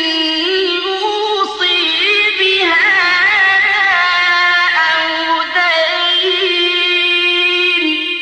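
A Quran reciter's voice drawing out one long ornamented note in the melodic tajweed style, the pitch wavering around a held tone. It ends near the end.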